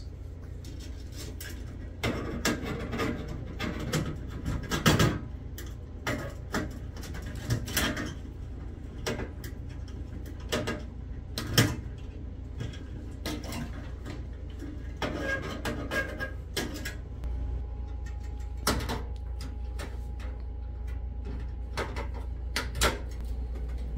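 Wire cutters snipping the thin wires at a fluorescent fixture's lamp holders, with handling of the sheet-metal fixture: a dozen or so sharp snips and clicks spread out at irregular intervals, over a low steady hum.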